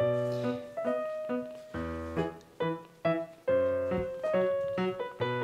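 Background music: a melody of struck notes that each fade away, over low bass notes about every two seconds.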